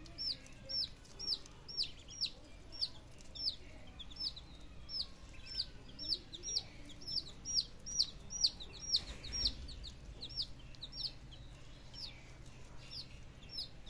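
Young chicks and ducklings peeping as they feed: a steady stream of short, high peeps, about two or three a second.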